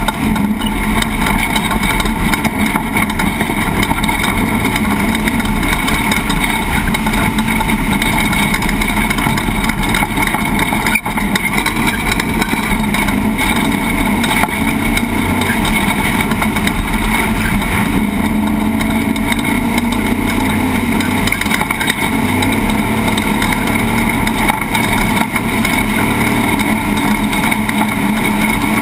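An off-road race truck's engine running hard and steadily over a fast lap, mixed with loud rough-terrain and drivetrain noise. There is a brief dropout about eleven seconds in.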